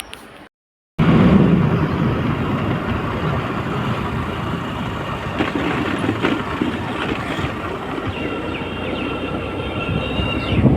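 Steady rumble and rattle of a moving vehicle, with a few short high squeaks near the end.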